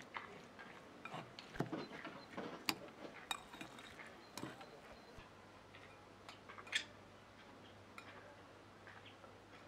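A metal utensil clinking against a glass bowl while stirring dressed shredded red cabbage salad. The light clinks come at irregular moments, thick in the first half and thinning out after about five seconds.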